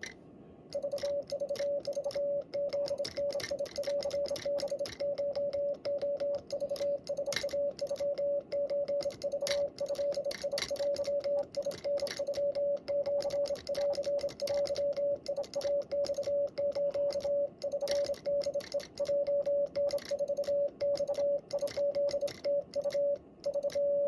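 Morse code sent on a Vibroplex Lightning Bug semi-automatic bug key: a steady mid-pitched beep keyed on and off in quick dots and dashes, with the key's lever and contacts clicking along, starting about a second in. The message is Japanese (wabun) Morse.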